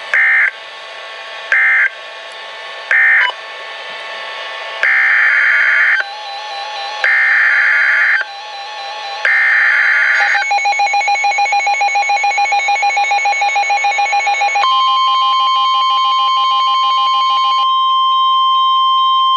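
Emergency Alert System SAME data tones: three short screeching bursts, the end-of-message code for the flood warning, then three longer bursts, the header for the next alert. A pulsing electronic alert tone follows, and from about 15 seconds in a steady high attention tone of NOAA Weather Radio.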